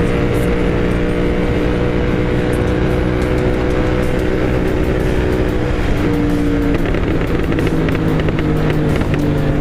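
Royal Enfield Continental GT 650's 648 cc parallel-twin engine, breathing through an aftermarket Moto Torque exhaust, running at a steady pace while riding. Its note shifts about six seconds in.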